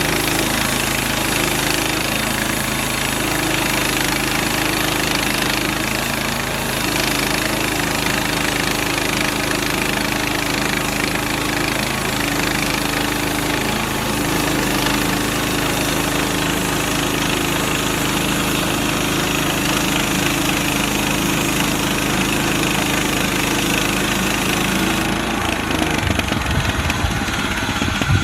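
Gas-engine Harbor Freight portable bandsaw mill running under load as its blade saws through a hard, dry mesquite log. The engine runs steadily; near the end the high hiss drops away and the engine note changes.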